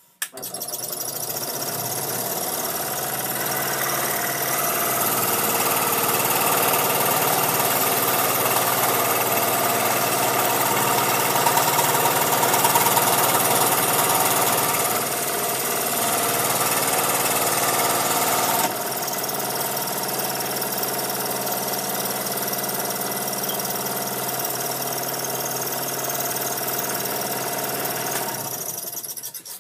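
Scroll saw running while cutting a small piece of wood, a steady motor-driven buzz. It starts just after the beginning, drops a little in level about two-thirds of the way through, and winds down at the very end.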